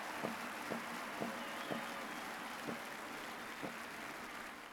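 Stadium crowd applause dying away, with single drum beats about twice a second that then thin out to two more, a second apart.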